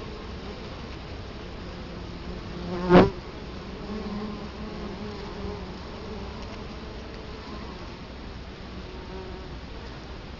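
Italian honey bees buzzing at the hive entrance, a steady hum of many wingbeats. About three seconds in, one bee buzzes loudly as it flies right past the microphone.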